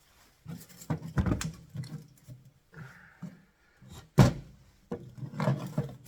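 Irregular knocks, taps and scraping from hand work on an engine part at a bench, with one sharp knock about four seconds in.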